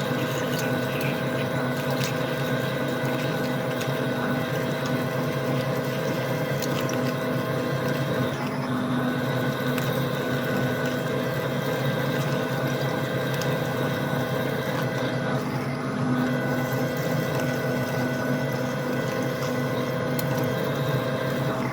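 Metal lathe running steadily while machining steel bar, a constant mechanical hum of several fixed tones, shifting slightly about eight seconds in.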